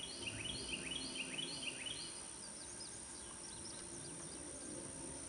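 Songbird singing outdoors: a quick rising phrase repeated about five times in the first two seconds, then a run of short, higher chirps, over a steady background hum.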